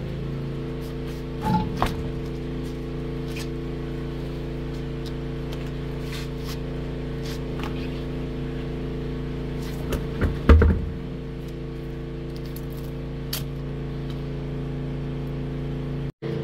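A truck wheel and tire being pulled off the hub and handled on concrete: a few light knocks about two seconds in, then a heavy thump near ten and a half seconds as the wheel meets the ground. A steady low drone hums under it all the way through.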